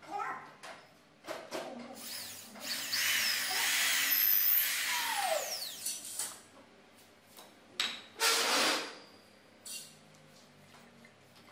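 Corded electric hand drill boring into a curved wooden volute block: it runs for about three and a half seconds, its whine sliding up and down in pitch, then winds down. A few light knocks come before it, and a short louder burst of noise follows about two seconds after it stops.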